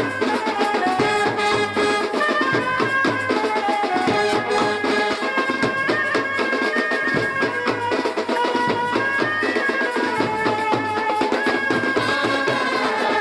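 Music: a traditional-style melody on a wind instrument over fast, dense drumming.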